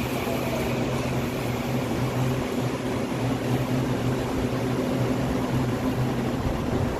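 Taiwan Railways EMU800 electric commuter train moving slowly along the platform: a steady low hum from its traction equipment over the even rumble of the wheels.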